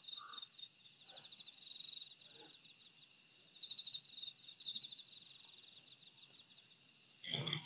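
Crickets chirping faintly in short, high, pulsing trills that come and go every second or so.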